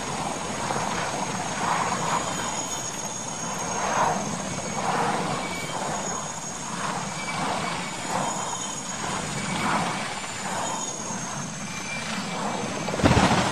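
Military transport helicopter running, with a steady high turbine whine over the rotor noise. Near the end a loud crash as the helicopter rolls over onto the ground.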